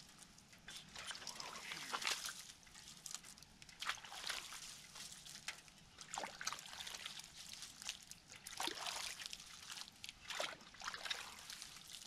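A rake poking and stirring in ditch water at the mouth of a clogged culvert pipe: irregular sloshes and splashes, some seconds apart.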